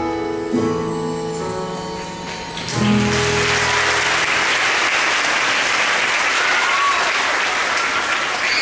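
Music ends on a final chord about three seconds in, and the audience then breaks into steady applause.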